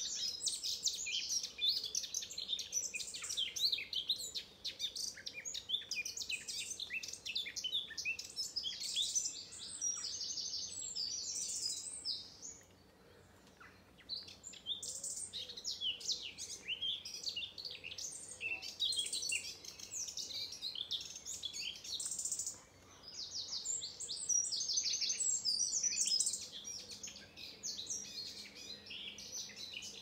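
Songbirds singing in a dense spring dawn chorus, many quick chirps and warbled phrases overlapping, with a brief lull about twelve seconds in.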